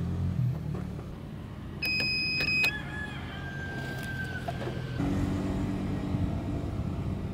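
Handheld digital battery analyzer on a car battery beeping once, a steady high electronic beep of just under a second, followed by a fainter, lower tone for about two seconds as the test runs to its result.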